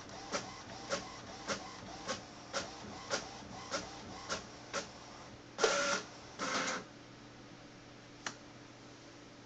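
Inkjet all-in-one printer at work: a regular click about every half second, ten in a row, then two short whirs as a printed sheet is fed out, and one last click near the end.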